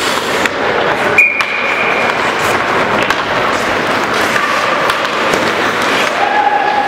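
Ice hockey play in an indoor rink: skate blades scraping the ice and sticks and puck clacking and thudding, echoing in the hall. A short high-pitched tone sounds about a second in.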